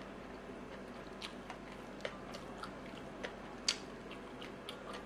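Close-miked chewing and mouth sounds of a person eating nasi padang: scattered soft wet smacks and clicks, the loudest about three and a half seconds in, over a faint steady hum.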